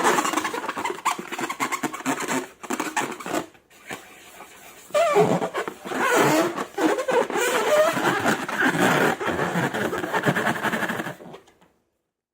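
Wet squelching and rubbery squeaking of slime being squeezed and worked in long balloons, dipping for a moment about three and a half seconds in and stopping suddenly just after eleven seconds.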